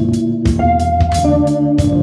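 Background music: held organ-like chords and a melody over a steady drum beat of about three hits a second.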